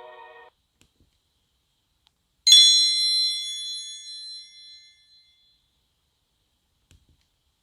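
A Nokia N73 (SoftBank 705NK) alert tone from the phone's own speaker: a single bright, bell-like chime that starts a couple of seconds in and rings out, fading over about two seconds. Before it, the end of the previous tone dies away.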